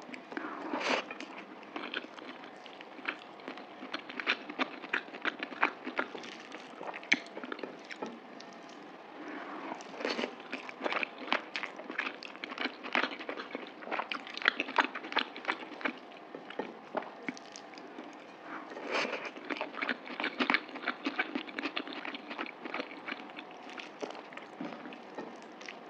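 Close-miked chewing and biting of mutton curry with rice: many short, irregular mouth clicks coming in clusters.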